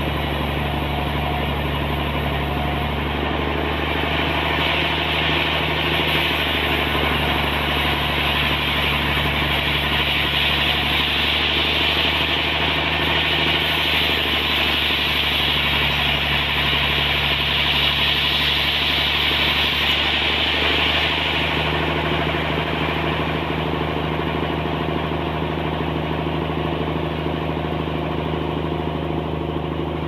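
Large band sawmill running and sawing lengthwise through a trembesi (rain tree) log: a steady machine hum under the hiss of the blade in the wood. The hiss grows louder about four seconds in and eases after about twenty seconds.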